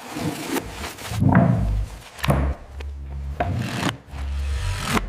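Repeated rubbing strokes on wood, about one a second, over a steady low hum.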